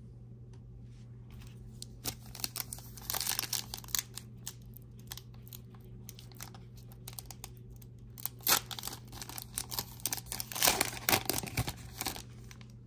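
A foil trading-card pack wrapper is torn open and crinkled by hand. It crackles in two spells, from about two seconds in and again from about eight seconds in.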